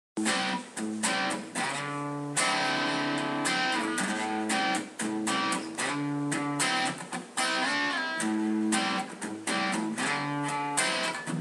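Background music: guitar played in quick picked and strummed notes.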